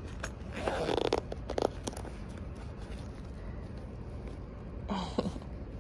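Zipper on a soft mesh pet carrier being pulled open in a couple of quick rasping strokes, with the fabric rustling, over a steady low hum. A brief voice-like sound falls in pitch near the end.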